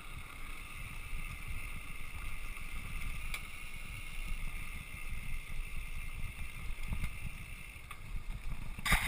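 Mountain bike rolling over a dirt road: the steady rumble of tyres and wind on the microphone, with a clatter of the bike over rough ground near the end.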